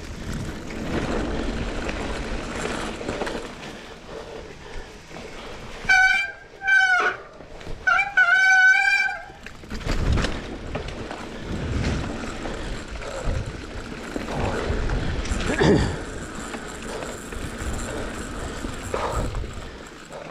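Rubber-duck squeeze horn on a mountain bike's handlebar honking twice near the middle, the second honk longer, each a warbling squeaky tone. Around it, the GT Aggressor Pro mountain bike rolls over a dirt trail with tyre noise, rattles and knocks from bumps.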